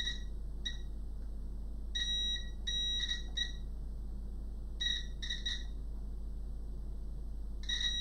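Digital multimeter continuity beeper: a high-pitched beep that sounds in short, broken spurts as the probe tips make and lose contact, then settles into a steady tone near the end as the probes hold a low-resistance path, which the meter reads at about 7 ohms.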